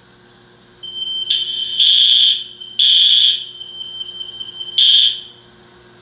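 Building fire alarm sounding during a brief test activation of its notification circuit from the panel: a steady high-pitched tone with loud blasts of about half a second each laid over it, stopping shortly before the end.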